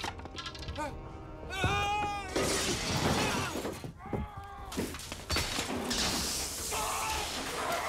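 A man's pained yell, then a loud crash of shattering glass as a body is thrown through it, followed a few seconds later by a long sizzling hiss as his hands land on a hot cooking range.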